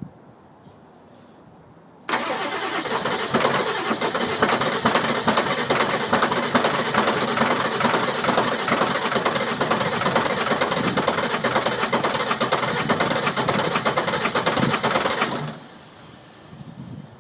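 Car engine cranking on its starter motor for about thirteen seconds without catching, then the key is released: a no-start.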